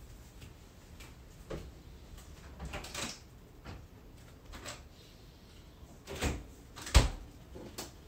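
Scattered short knocks and clunks over a low rumble, the loudest a sharp thump about seven seconds in.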